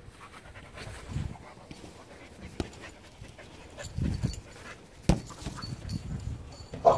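A dog panting in quick, rhythmic breaths, with a sharp knock about five seconds in and a brief higher-pitched sound near the end.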